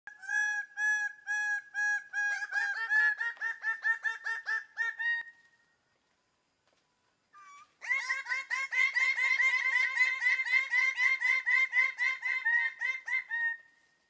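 Male birds-of-paradise giving loud, nasal, repeated courtship calls at a display tree. The calls come about two a second at first, then quicken into a rapid series, break off for about two seconds, and start again as a long fast run.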